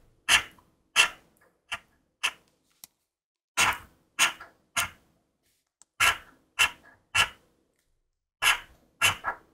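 A coin scraping the coating off a Speetto instant lottery scratch card in about a dozen short, separate strokes, with brief pauses between groups of strokes.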